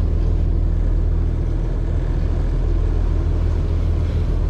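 A small sightseeing boat's engine running at a steady cruising drone, with the rush and splash of the hull through choppy water.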